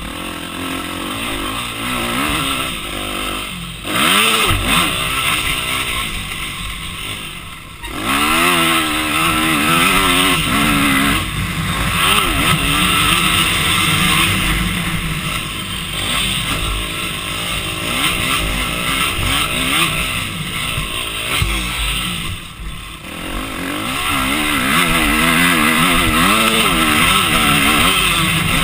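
Onboard sound of a racing quad's engine running hard, revving up and falling off again and again, with rushing wind on the microphone. The revs drop off briefly a few times.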